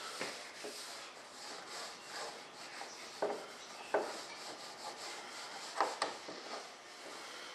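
Hand rubbing mold-release paste wax (honey wax) over the surface of a mold: a steady scrubbing rub, with a few light knocks against the mold.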